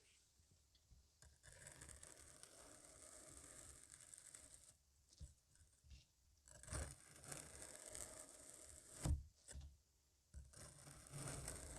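A blade cutting and scraping through kinetic sand: gritty, crunchy scraping strokes in several separate passes with short pauses between them, and one sharp tap about nine seconds in.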